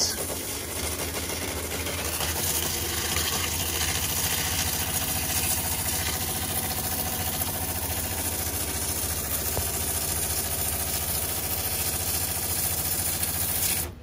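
Water from a RinseKit Pro spray nozzle on its center-spray setting, spraying steadily onto an iced-up evaporator coil to melt the ice: an even, continuous hiss with a low steady hum underneath.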